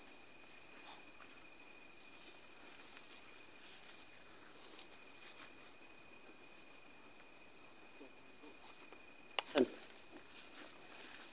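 Night insect chorus of crickets: faint, steady high-pitched trilling at several pitches at once. About nine and a half seconds in, two quick sharp knocks cut through it.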